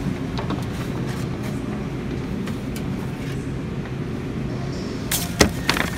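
Steady background hum of a supermarket's chilled drinks aisle, with a few sharp knocks and clatters about five seconds in as cans are handled on the shelf.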